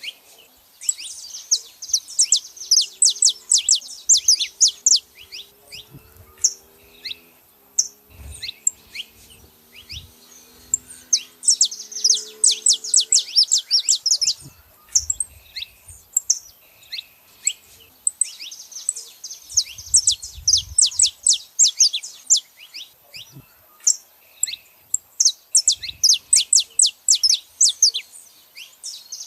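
Saffron finches chirping and singing: several stretches of rapid, high chirps a few seconds long, with single sharp calls between them.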